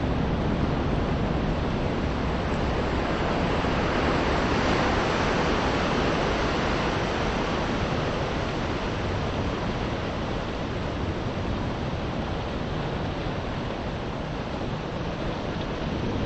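Small sea waves washing onto a pebble shore, a steady rushing that swells a little about four seconds in and eases slightly toward the end.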